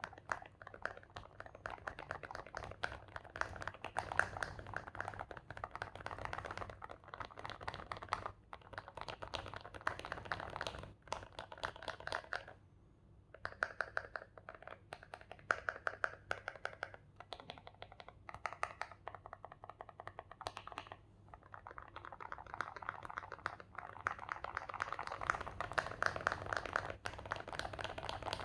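Typing on a mechanical keyboard with lubed KTT Strawberry linear switches and SA-profile Signature Plastics keycaps: a fast, continuous run of keystroke clacks, with a brief pause about twelve seconds in.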